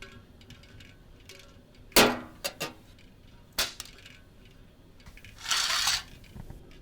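Foley sound effects: a sharp knock with a short ring about two seconds in, followed by two small clicks, another sharp knock, and near the end a half-second burst of hissing noise.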